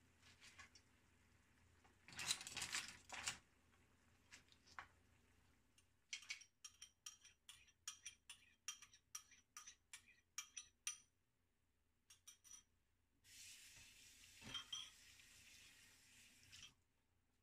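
Faint clinks and knocks of metal utensils against a nonstick pan and a bowl. A run of light clinks comes about two a second through the middle, and a soft steady hiss lasts about three seconds near the end.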